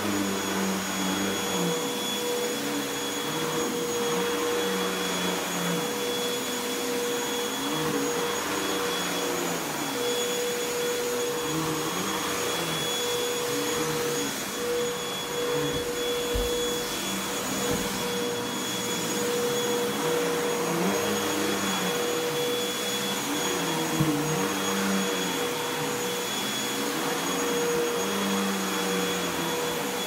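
Upright vacuum cleaner running while pushed back and forth over carpet: a steady motor whine with high tones over a rushing hiss, and a lower hum that rises and falls with each stroke. A few short knocks, the sharpest about three-quarters of the way through.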